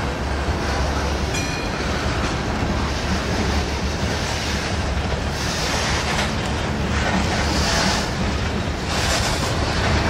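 Freight cars rolling past at close range: a steady rumble of steel wheels on rail.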